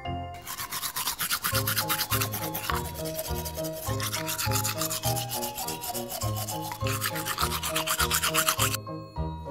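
Toothbrush scrubbing teeth in quick, rapid strokes, starting just after the opening and stopping shortly before the end, over a light background melody.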